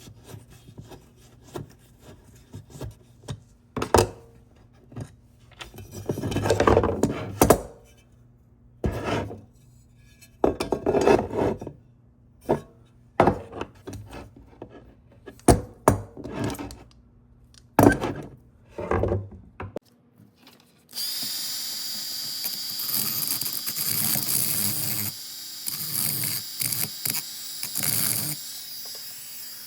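Workshop tool sounds: scattered metal clicks and knocks with a few short power-tool bursts. About two-thirds of the way through, a loud steady run of machine noise begins.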